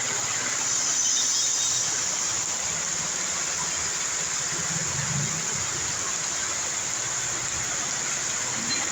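Steady rain falling, an even hiss, with the low hum of a passing vehicle about halfway through.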